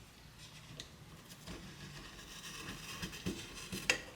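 Faint handling sounds of a tape measure and carpenter's pencil as the tape, hooked over a screw, is swung to draw a curve, with a few light ticks and one sharper click near the end.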